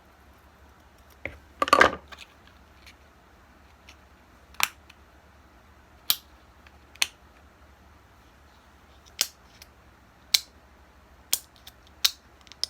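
Scissors snipping in single cuts, about seven sharp snips spaced a second or so apart, with a louder short rustle of handled material about two seconds in.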